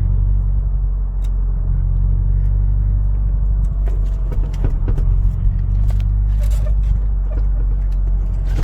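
2001 Dodge Dakota's engine running with a steady low rumble and scattered, irregular ticks and clicks over it. It sounds horrible, a sign that something is wrong with the truck.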